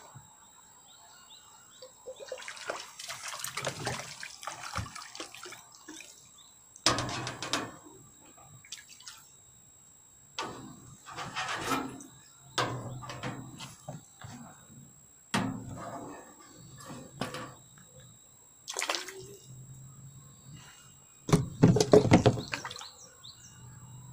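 Water splashing on a pond in irregular bursts a few seconds apart, each sudden and dying away within about a second, the loudest near the end.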